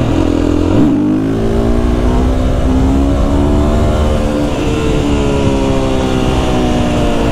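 Husqvarna FE 350 four-stroke enduro engine pulling hard under acceleration: its pitch climbs steadily from about a second in, then holds and eases slightly toward the end.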